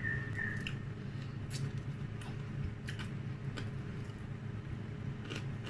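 Close-up chewing with irregular crisp crunches from crispy fried dried milkfish, over a steady low hum.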